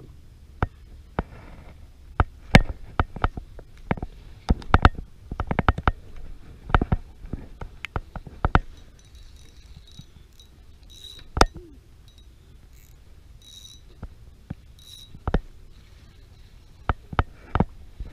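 Handling noise from rigging fishing tackle next to a body-worn microphone: irregular sharp clicks and knocks, busiest in the first half, over a low rumble of wind on the microphone. A few short high chirps come in the second half.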